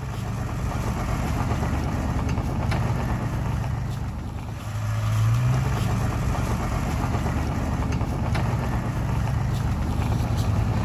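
A vehicle engine runs steadily under load during a single-line winch pull on a 13,000 lb winch. The pitch steps up about halfway through and holds, with a few light clicks over the top.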